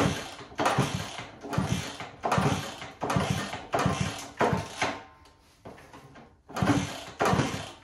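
The 1964 Honda 50 Super Cub's small four-stroke single being kicked over again and again, about eight strokes in a regular rhythm with a short pause near the end, without firing. The owner suspects stuck piston rings or too-tight valves letting air escape through the intake or exhaust.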